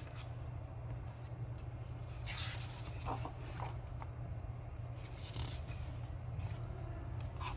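Paper rustling as a paperback picture book is opened and its pages are turned, with a hand brushing across the pages in a few soft strokes. A steady low hum runs underneath.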